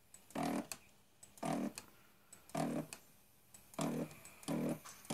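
Stepper motor turning a homemade robot's head in short, jerky moves: five brief pitched buzzes, each about a third of a second, roughly once a second, with a few sharp clicks between them.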